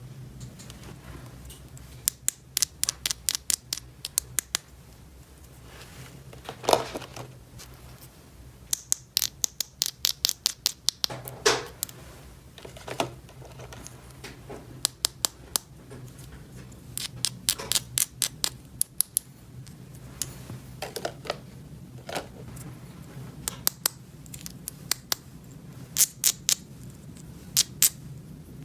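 Small hard plastic toy pieces being handled: runs of quick, light clicks and taps with a few duller knocks, over a steady low hum.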